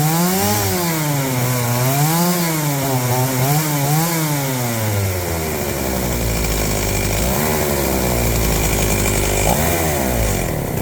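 Stihl 028 two-stroke chainsaw engine running at idle, its speed rising and falling in smooth waves about every second and a half, then settling to a lower, steadier idle about halfway through, with two brief small rises near the end.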